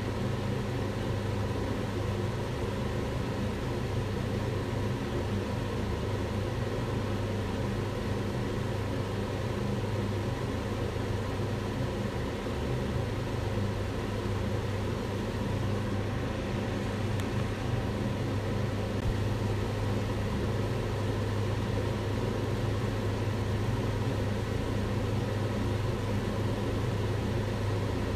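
Kitchen range hood fan running steadily: a constant low hum under an even rush of air, used as white noise.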